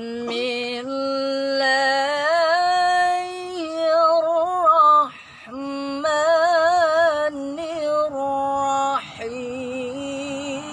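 A reciter chanting the Quran in melodic tilawah style: long held notes with wavering, ornamented turns, in three phrases broken by breaths about five and nine seconds in.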